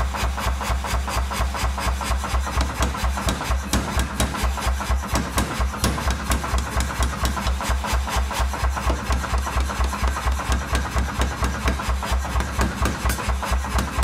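Power forging hammer running, its ram striking a red-hot steel knife blank on the die in a steady rapid train of blows, about three a second, over the machine's steady low hum.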